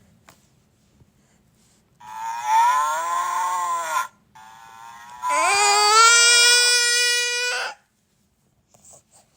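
Cow mooing: two long calls, the second rising in pitch and then held steady.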